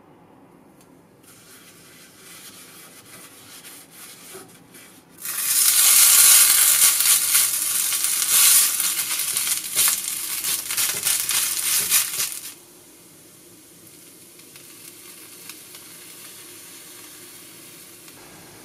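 Cooked rice sizzling and crackling in a hot, oiled cast-iron skillet as it is pressed and spread with a wooden spatula. The sizzle starts suddenly about five seconds in, stays loud with many small crackles, and drops to a faint steady hiss about twelve seconds in.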